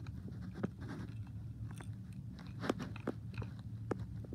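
Scattered small clicks and crackles of a toy train's circuit board and wiring being handled and picked at, the sharpest ticks coming a little under three seconds in and just after, over a steady low hum.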